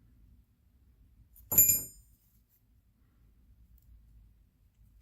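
A single metallic clink about one and a half seconds in, a small metal lock part striking a hard surface, with a short high ring that dies away quickly.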